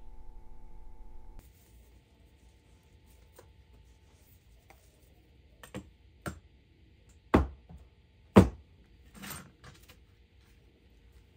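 Hands handling a roll of plastic wrap over paper plans on a workbench: a few scattered knocks and thuds, the two loudest about seven and eight seconds in. A faint steady hum cuts off about a second and a half in.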